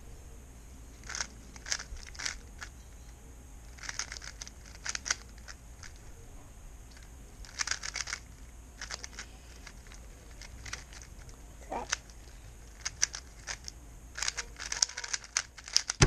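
Plastic speed cube being turned by hand: clusters of quick clacking turns with short pauses between them, busiest near the end.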